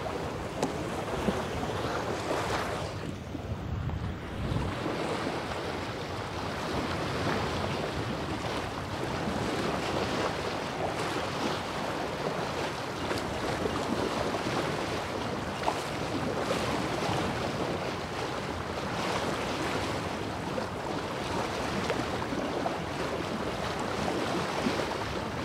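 Water rushing and splashing along a sailboat's hull as it sails, a steady wash with wind buffeting the microphone.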